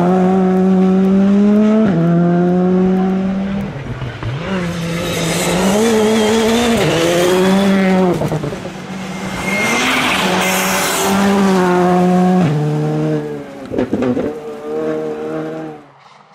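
Rally cars driven hard, engines held at high revs with a gear change every few seconds. A burst of hiss comes about ten seconds in, and the sound falls away suddenly just before the end.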